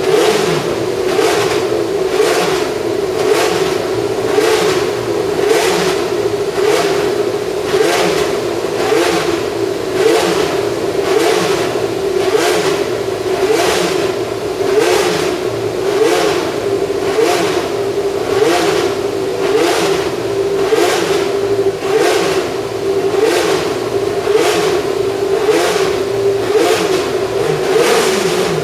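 Tyrrell P34's Ford Cosworth DFV V8 running loudly at steady, high revs, with a regular pulsing in the note about once a second.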